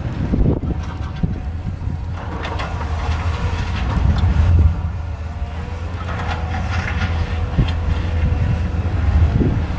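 Caterpillar 320 excavator's diesel engine running steadily, with two spells of irregular scraping and clatter from the work.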